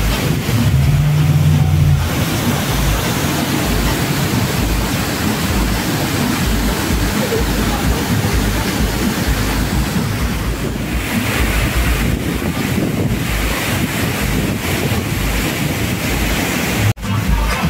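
Steady rush of a waterfall pouring into its plunge pool, with low wind rumble on the microphone and a brief low hum about a second in.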